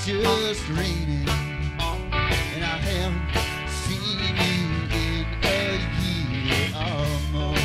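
Live country-rock band playing an instrumental break: electric guitars and pedal steel over bass and steady drums, with a lead line of bending, sliding notes.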